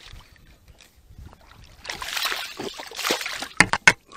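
Water splashing as a hooked bass thrashes at the surface beside the boat, starting about halfway through, followed by two sharp knocks just before the end.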